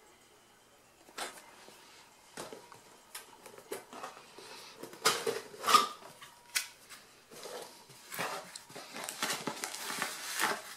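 Cardboard reel box being opened and handled: scattered scrapes and knocks of the box and its inner flap, a few louder ones about halfway through, then denser rustling of paper as the manuals are pulled out near the end.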